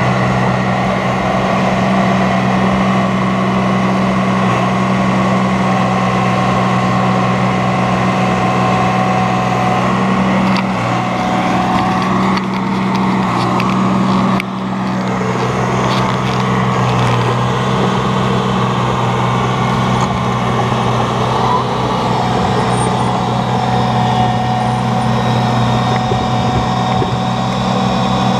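Caterpillar crawler bulldozer's diesel engine running steadily under load, with a brief dip in level about halfway through.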